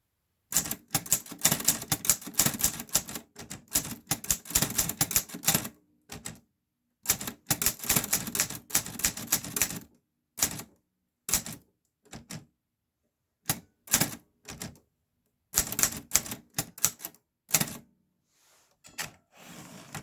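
Clover New Star 10S two-set (dubeolsik) Hangul typewriter being typed on: two long runs of rapid key strikes, then scattered single keystrokes and short bursts, with a softer rustling sound near the end.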